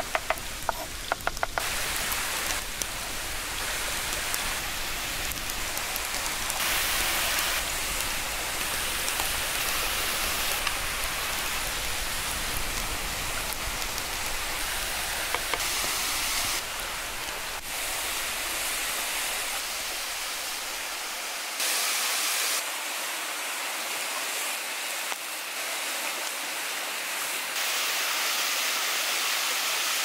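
Steady rushing of a waterfall, with a quick run of knife chops on a wooden cutting board in the first second or so. The water noise shifts abruptly in level several times.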